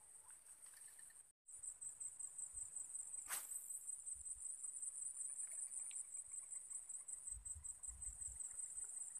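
Insects chirping in a high, steady, rapidly pulsing trill, with a brief swish about three seconds in as a fishing rod is cast.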